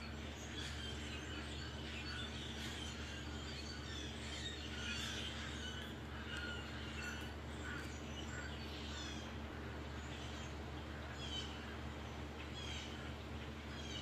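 A large flock of birds calling in the treetops: a dense, overlapping chorus of short chirps and calls, over a steady low hum.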